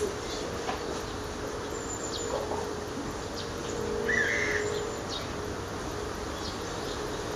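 Chinese bamboo partridge calling in the distance, one short call about four seconds in, with small birds giving brief high chirps. A faint steady hum runs underneath.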